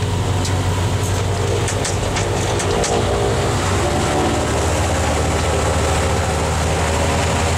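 Twin Rotax 912 flat-four engines and propellers of a Che-29 seaplane running steadily on the ground, a constant drone heard from inside the cabin.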